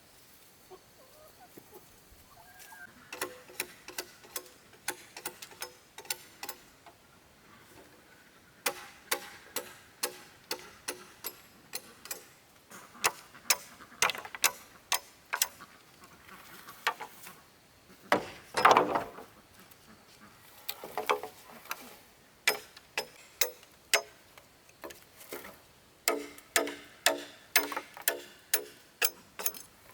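Hammer blows struck in runs, about two a second, each with a short ring, with pauses between runs and one louder, longer knock a little past halfway.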